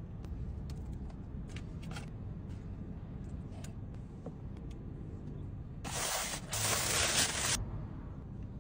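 Gloved hands handling food and its paper wrapping, with light rustles and clicks over a steady low rumble, and a loud rustle lasting about a second and a half around six seconds in.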